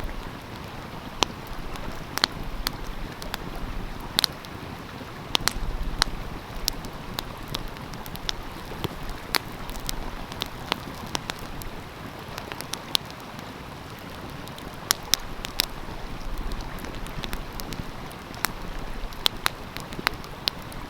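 Wood fire crackling, with irregular sharp pops scattered over the steady rush of a flowing stream.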